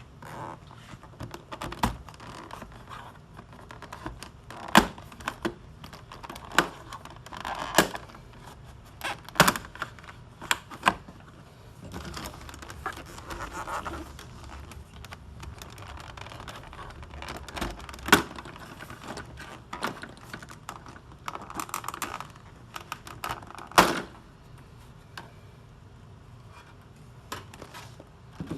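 Hand tools working on a plastic center console piece: scattered sharp clicks and knocks, a few of them loud, with short stretches of scraping and rustling between them.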